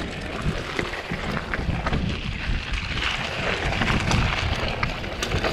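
Wind buffeting an action camera's microphone during a bike ride, a steady rushing noise with scattered clicks and knocks from the bike rattling over the ground.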